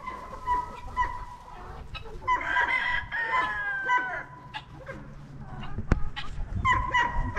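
Free-ranging chickens clucking, with a rooster crowing once about two and a half seconds in. A single sharp knock comes about six seconds in.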